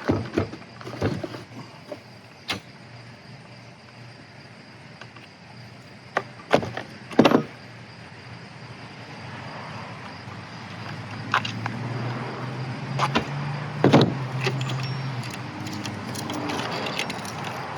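Scattered clicks and knocks of a carving chainsaw being taken apart by hand, parts and tools tapping against each other, with the sharpest knock about seven seconds in. A low steady hum comes in during the second half.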